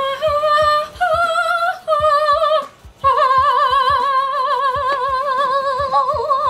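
A woman singing a few high notes in an operatic style with wide vibrato, ending on one long held note of about three and a half seconds.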